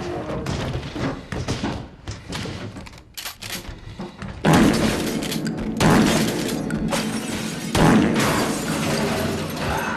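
Action-film fight soundtrack: a run of knocks and crashes, then three loud hits, each about a second and a half apart and ringing on.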